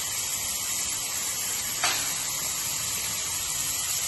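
Chopped mushrooms sizzling steadily in butter in a frying pan, with one light click a little under two seconds in.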